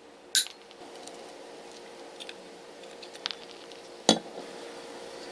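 Side-cutting pliers snipping through the coiled spring wire of an old power-tool carbon brush: a sharp metallic snap about half a second in, light clicks of the wire and cut rings, and a louder knock about four seconds in.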